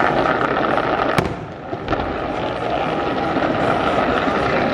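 Aerial fireworks shells bursting in a display: a continuous crackle and rumble of many breaks, with a sharp bang about a second in and another just before two seconds.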